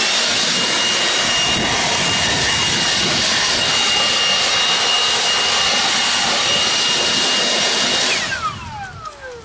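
Milwaukee battery-powered leaf blower running at full speed, a steady loud rush of air with a high whine, blowing dust out of a laser water chiller's coil. About eight seconds in the trigger is released and the fan winds down in a falling whine.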